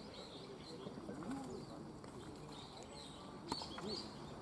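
Faint outdoor ambience: distant murmuring voices and small birds chirping, with a single sharp click about three and a half seconds in.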